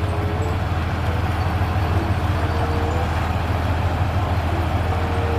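Heavy truck engine idling, a steady deep rumble, played as a sound effect for a toy sand truck.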